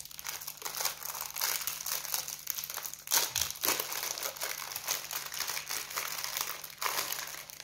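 Clear plastic bag around a magazine being crinkled and pulled open by hand: a continuous crackling, with louder crackles about three seconds in and again near the end.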